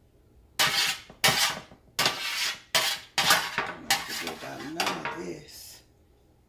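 Metal spatula scraping and clanking against a metal sheet pan: about seven sharp, noisy scrapes in quick succession, each starting hard and trailing off.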